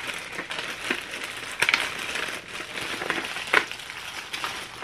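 Clear plastic bag crinkling as it is handled and opened, with a couple of sharper crackles, one about a second and a half in and one more a couple of seconds later.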